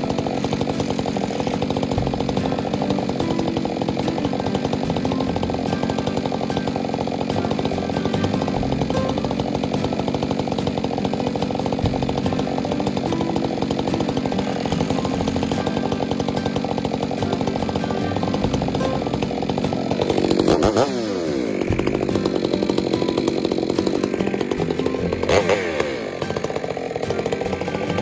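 Two-stroke chainsaw running steadily under load while cutting fir logs. The engine pitch drops and climbs again about twenty seconds in, and once more near the end.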